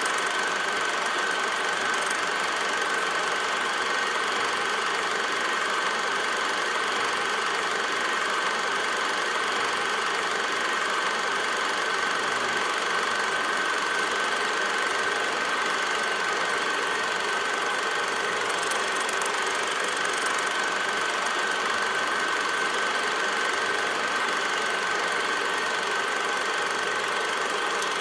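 A film projector running: a steady mechanical rattle and whir with one constant tone over it.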